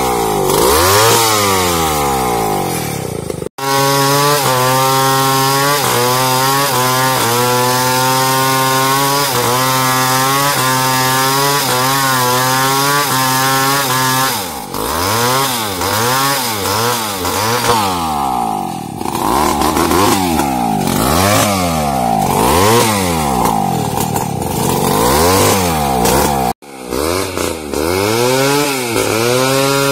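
New West 707 two-stroke chainsaw running and cutting, its engine pitch rising and falling again and again, holding steady for several seconds in the middle. The sound cuts out abruptly twice, about a few seconds in and near the end.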